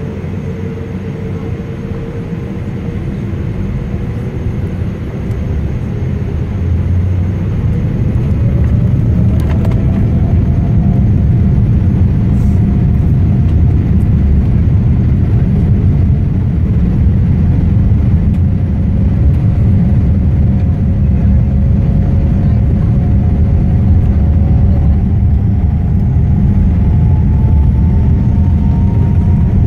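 A Boeing 787 Dreamliner's turbofan engines spooling up for take-off, heard from inside the cabin. A low rumble grows louder over the first several seconds, a whine rises in pitch, and then the sound holds loud and steady as the plane rolls down the runway.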